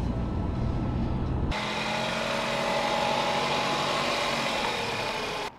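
Car sounds: a deep road rumble heard from inside the cabin. About a second and a half in, it changes abruptly to a car engine running outside, with steady tones that drop slightly in pitch near the end. The sound stops abruptly just before the end.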